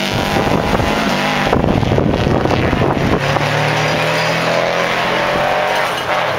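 Subaru Impreza rally car accelerating hard out of a gravel hairpin, its engine revving with a dense noisy spray for the first three seconds or so. After that it settles into a steadier engine note as the car pulls away.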